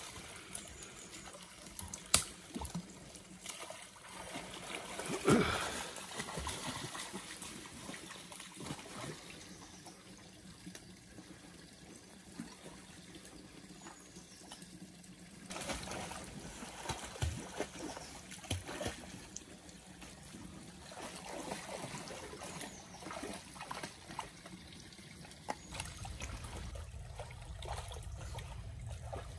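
A dog wading and swimming in a muddy pool: water sloshing and trickling, with louder splashes about five seconds in and again around sixteen seconds. A low rumble comes in over the last few seconds.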